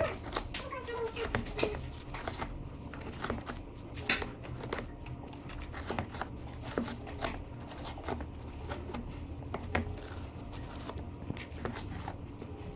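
Irregular small clicks, crackles and rustles of close-up handling.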